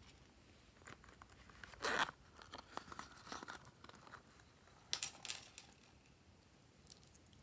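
Hands handling a small crown-capped nail-polish bottle: two short scraping rustles, about two seconds and five seconds in, among scattered small clicks.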